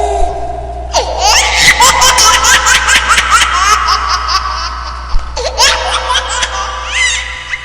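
Laughter sound effect: a person laughing in a long run of quick, repeated ha-ha pulses. It starts about a second in and fades near the end.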